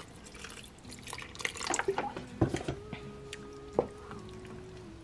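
Chicken stock being poured into thick potato soup in a crock pot and stirred, with liquid splashing and a couple of sharp clicks, over soft background music.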